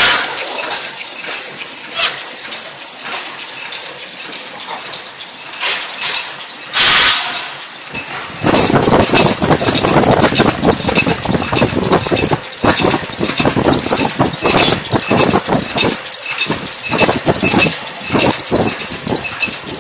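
High-speed paper cup forming machine running, its cams, turrets and moulds making a rapid, continuous mechanical clatter, with a short burst of hiss about seven seconds in. The clatter grows louder and denser from about eight seconds in.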